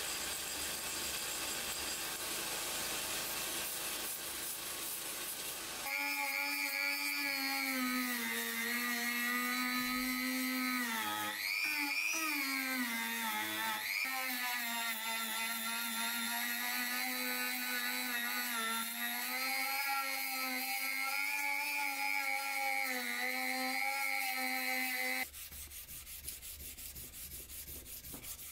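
A belt grinder sanding the steel of a knife for the first few seconds. Then a handheld rotary tool with a small sanding drum runs with a steady high whine, its pitch dipping briefly a few times as it is pressed into the steel. Near the end it stops and a quieter hand-sanding rub takes over.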